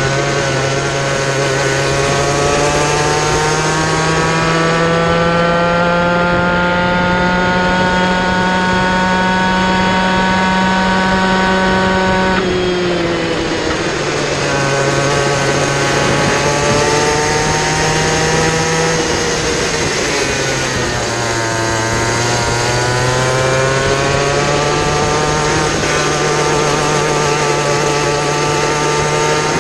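Kid kart engine at racing speed, its pitch climbing steadily on the straights and falling sharply as the throttle comes off for corners, about twelve seconds in and again around twenty seconds in.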